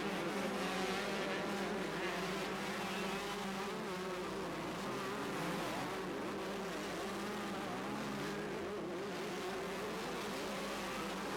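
Motocross motorcycles racing, their engines buzzing and revving up and down throughout.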